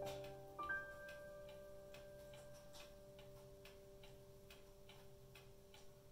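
The last notes of soft background music die away, a few held tones lingering, over a faint, steady ticking of about three ticks a second.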